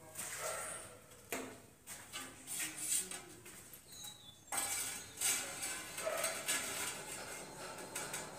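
Tiling work: clinks and knocks of a metal trowel against a mortar pan and tiles, with a denser run of scraping and small strikes from about four and a half seconds in as a wall tile is set in place.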